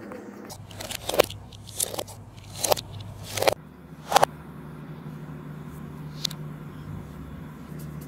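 Pencil scratching across paper in about five quick strokes in the first half, then a single light tap.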